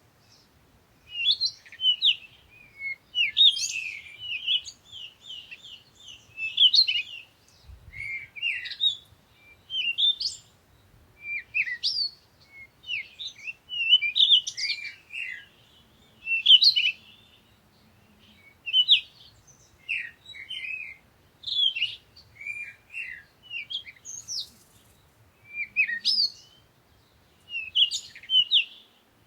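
Songbirds chirping and singing in quick bursts of short, sweeping high notes, with brief pauses between phrases.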